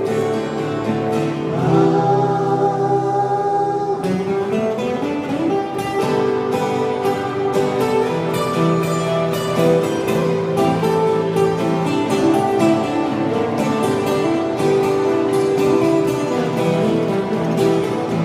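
Music: a passage of a Japanese pop song with guitar.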